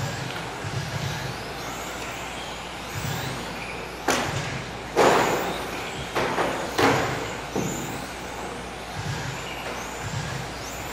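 Electric motors of 1/10-scale touring cars with 17.5-turn brushless motors racing on a carpet track: high whines that rise and fall as the cars accelerate and brake past. About four to eight seconds in come several sudden loud noises that fade quickly.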